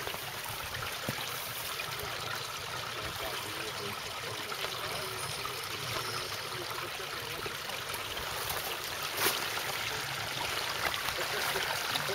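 Shallow rocky burn running, a steady rush and trickle of water over stones, with one sharp click about nine seconds in.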